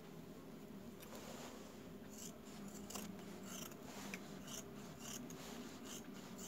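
Faint rustling, scraping and clicking of hands handling a cut jeans leg and sewing tools on a table.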